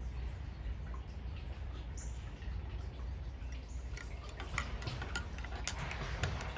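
Scattered light ticks and drips of water over a low rumble of wind on the microphone. Near the end a spoon clinks sharply a couple of times against a ceramic coffee mug as it is stirred.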